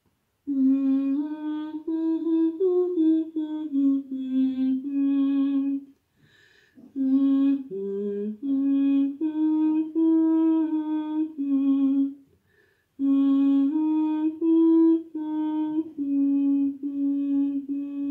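A woman's voice humming a slow, simple melody without words: held notes stepping gently up and down, in three phrases with short pauses between.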